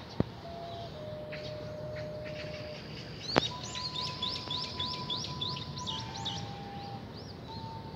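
A distant ocarina playing slow, held single notes, pure in tone. Near the middle a bird joins with a quick run of rising chirps, about four a second, and a sharp click stands out just before the chirps begin.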